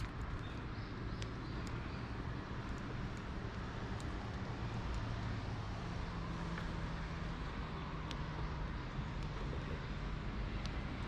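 A low, steady engine hum in the background, with a few light clicks.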